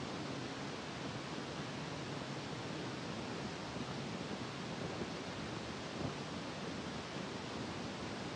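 Steady, even hiss-like background noise with no distinct sounds standing out.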